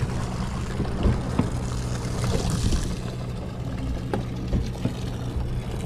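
A sportfishing boat's engine runs with a steady low hum, while water washes against the hull, rising to a brief hiss about two seconds in, with a few light knocks on deck.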